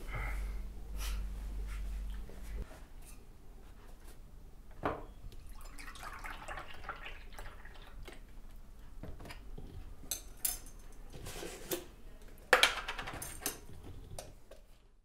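Kitchen-table handling of a cup, a milk carton and a plastic-lidded jar: milk poured from the carton into a ceramic cup, then scattered clicks of caps and lids, and one sharp clink against the cup near the end, the loudest sound.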